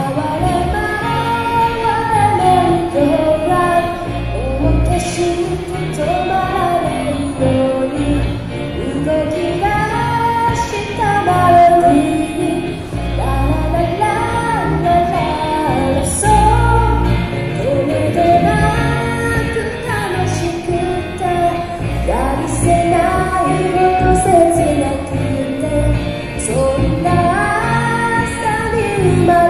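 A band playing a pop cover song live, with a singer's voice carrying the melody over guitar and a steady low accompaniment.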